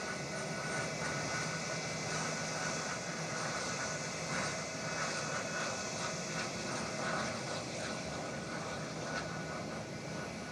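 An Airbus A320 airliner's jet engines running steadily at taxi power as it rolls away across the airfield, heard as an even rush with a faint steady whine.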